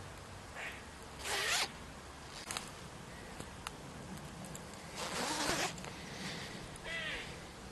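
Metal hoodie zips being zipped and unzipped in short rasping runs. The loudest runs come about a second in and about five seconds in.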